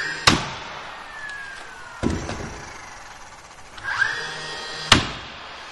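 Narrow crown stapler shooting staples into the wooden pocket door frame: two sharp shots about four and a half seconds apart, with a softer knock between them.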